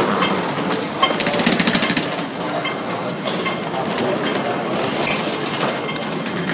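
Small wheeled suitcase rolled over a tiled floor, its wheels rattling in a fast, even clatter that is loudest from about one to two seconds in. A single sharp click comes about five seconds in.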